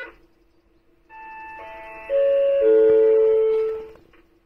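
Station loudspeaker chime: four notes striking one after another, each lower than the last, and ringing on together before fading out. This is the closing chime that signals the end of an announcement.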